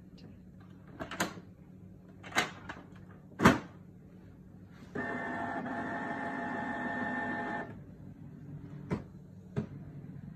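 Canon PIXMA G3420 ink-tank printer: three sharp knocks as its lids are shut, the third the loudest, then its internal motors run with a steady whir for about three seconds as it starts up, followed by two light clicks.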